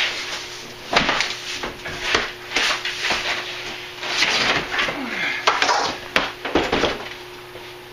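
A cardboard shipping box being set down and a benchtop table saw lifted out of it: an irregular run of knocks, bumps and cardboard scraping, with the sharpest knocks about one, two and six seconds in. A faint steady hum sits underneath.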